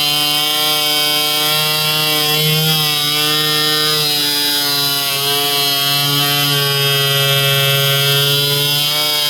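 Electric router running continuously and cutting a hinge recess into wood, its motor pitch sagging slightly and recovering as the bit takes load.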